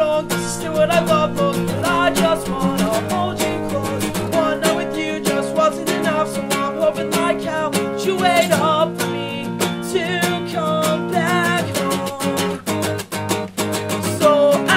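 Acoustic guitar strummed steadily, with several voices singing a pop-punk song along with it.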